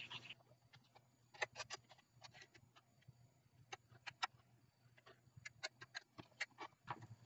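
Faint, scattered ticks and light scrapes, in small clusters, of a small stick stirring two-part epoxy on a plastic lid and dabbing it onto the broken edge of a Bakelite radio cabinet.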